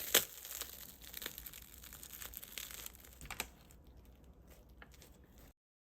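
Faint rustling and crinkling with scattered small clicks and taps, cutting off to dead silence near the end.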